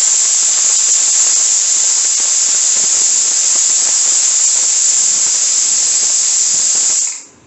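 Stovetop pressure cooker letting off a loud, steady hiss of steam through its weight valve: one of the cooker's 'whistles', the sign that it has come up to pressure. The hiss fades out near the end.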